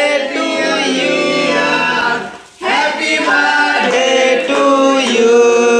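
Several voices singing together, breaking off briefly a little over two seconds in before singing on.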